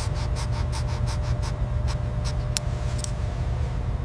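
A steady low rumble with a faint steady hum. Over it, a quick run of light ticks, about six a second, goes on for the first second and a half, then gives way to a few scattered clicks.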